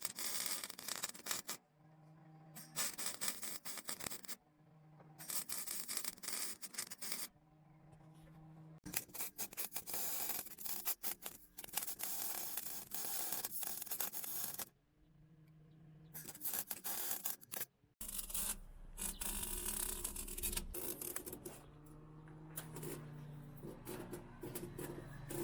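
Welding crackle in a series of bursts, each one to several seconds long, with short pauses between them, as a steel mounting plate is welded into the car.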